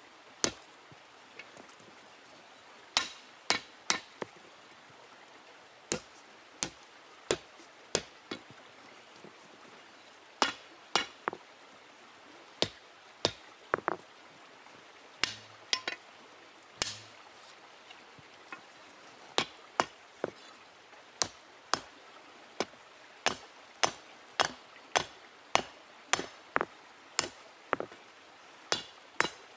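Stone hammer striking an iron bar in hand forging: sharp, irregular blows, some in quick twos and threes, with pauses between, and a brief metallic ring after some strikes.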